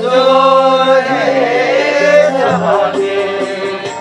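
Singing with instrumental accompaniment: long held vocal notes that waver and slide, over a steady lower accompanying note that changes pitch every second or so.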